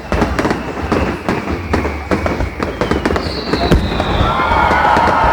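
Aerial fireworks going off in quick succession, a dense run of bangs and crackles. About three seconds in, a high whistle begins and slowly falls in pitch over the bursts.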